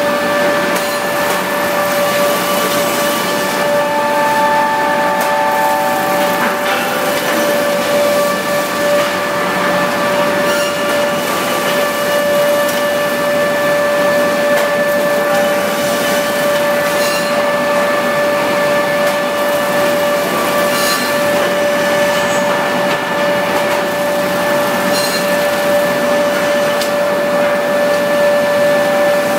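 REX planing machine running with a steady, high-pitched whine and a constant mechanical hum, with a few brief knocks here and there.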